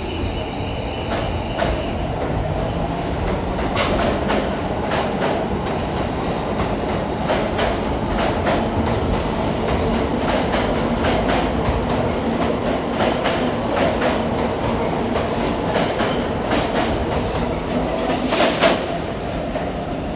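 R46 subway train pulling out of the station past the platform: a steady rumble with wheels clicking over the rail joints. A brief loud hiss comes near the end.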